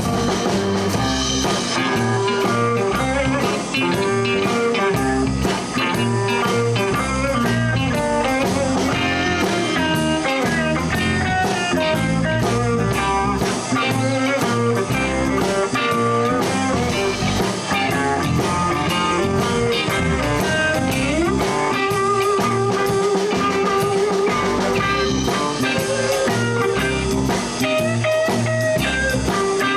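Live blues band of guitars, bass and drums playing an instrumental break with a guitar taking the lead. About 21 seconds in, a note is bent up and held.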